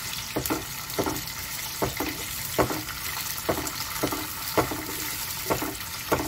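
Dried squid sizzling in hot oil in a wok, stirred with a wooden spatula that scrapes and knocks against the pan about once a second.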